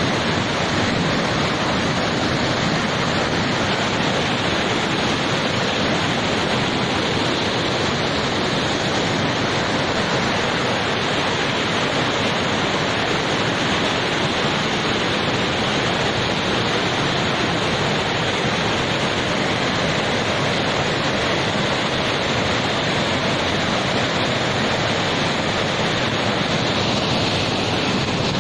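Muddy floodwater rushing over rocks down a narrow channel: a loud, steady, unbroken rush.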